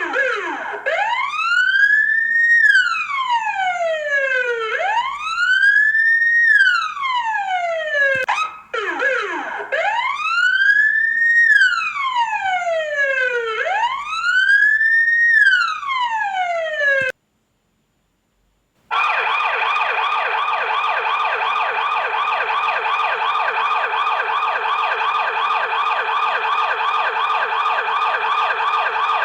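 Electronic fire engine siren. It first wails, rising and falling slowly about every four seconds, with a brief break about eight seconds in. It cuts out about seventeen seconds in, then after two seconds of silence it returns as a rapid, steady warble.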